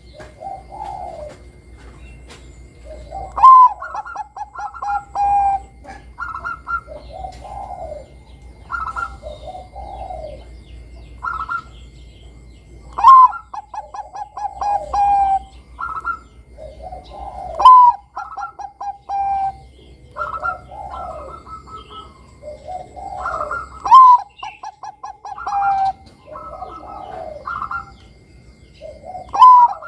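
Zebra dove of the Bangkok song line (perkutut bangkok) cooing its full song. About five phrases repeat every few seconds, each opening with a sharp rising note, then a quick run of short staccato coos and a few longer notes. Softer coos fall between the phrases.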